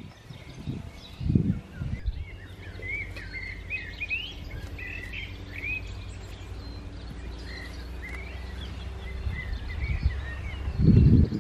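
Outdoor birds chirping and singing over a steady low rumble, with a muffled low bump about a second in and a louder one near the end.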